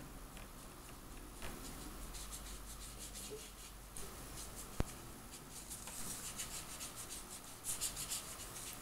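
Faint, repeated scratching of a Pentel Aquabrush water brush stroked across paper as blue watercolor is painted on, in runs of short strokes, with one small sharp click about five seconds in.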